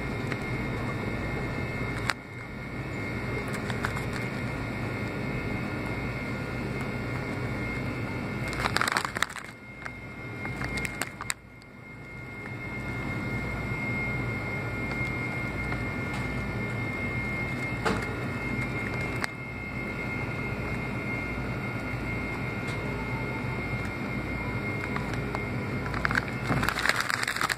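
Steady machine hum with a few constant tones. The plastic snack bag crinkles in the hand about nine seconds in and again near the end.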